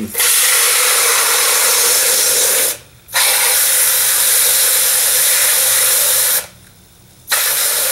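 Water from a garden hose's metal pistol-grip spray nozzle hissing into a plastic mixing cup. It stops twice for a moment, about three seconds in and again near six and a half seconds, then starts again near the end.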